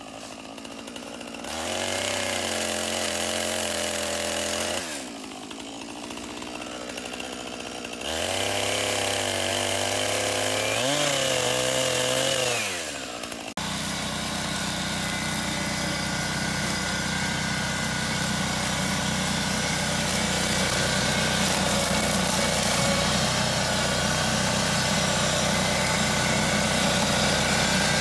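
Engine-powered equipment running: it revs up and eases back down twice, then a steadier engine sound takes over abruptly about halfway through.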